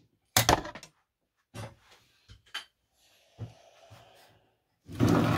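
Things being handled and set down on a wooden board: a sharp knock about half a second in, a few lighter knocks and clicks, then a longer, louder stretch of scraping and rummaging near the end.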